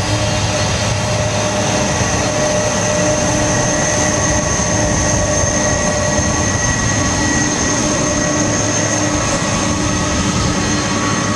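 Boeing 747-400's four jet engines running steadily at taxi power as the airliner rolls slowly past, a loud even rush of jet noise with a high-pitched whine.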